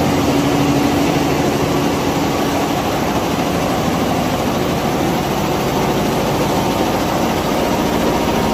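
A 20-head, 9-colour Richpeace flat embroidery machine running at speed, its needle heads stitching together in a steady, fast mechanical rhythm.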